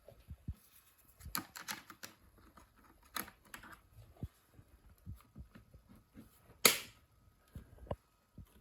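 Scattered small clicks and taps of hands handling a computer and its parts, with one sharper click near the end.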